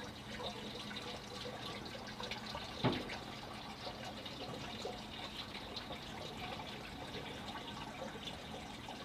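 Running water trickling and dripping, with many small drips and splashes, and one louder plop about three seconds in.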